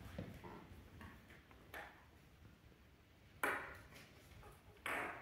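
Plastic draw capsules being handled over a glass bowl: a few short, sharp clicks and knocks, the loudest about three and a half seconds in.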